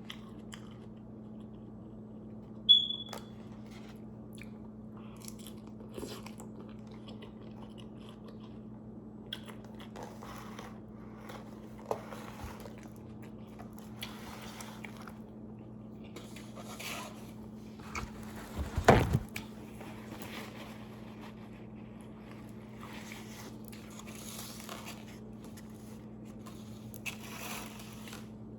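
A person eating close to the microphone: scattered bites and chewing over a steady low hum, with a short bright clink near 3 seconds and a loud thump about 19 seconds in.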